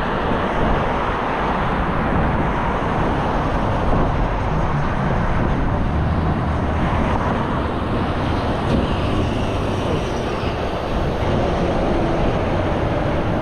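Steady road traffic noise: motor vehicles running on the road around a cyclist, a constant rush with a heavy low end.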